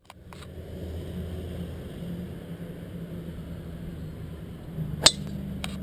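A steady low engine hum, with one sharp crack about five seconds in from a golf club striking a ball.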